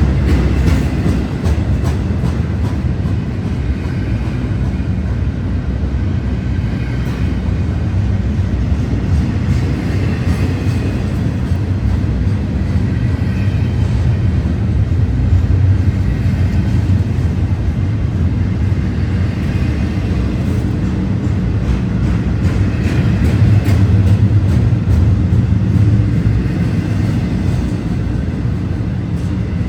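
Union Pacific intermodal freight train rolling past, a steady heavy rumble of wheels on rail.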